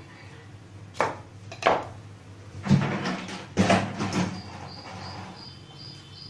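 Kitchen knife and hands knocking on a plastic cutting board several times while a green bell pepper is cut into pieces. In the second half, a faint run of short, evenly spaced high chirps, about two or three a second.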